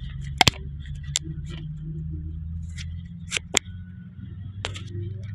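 A steady low hum with about five sharp clicks and knocks over it, the loudest about half a second in, two close together past the three-second mark, and one near the end.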